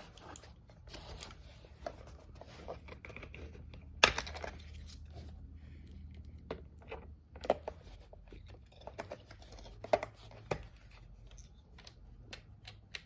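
Hands handling plastic keyboard and mouse parts and their packaging: scattered light clicks and rustling, with one sharp click about four seconds in and a few more near the end.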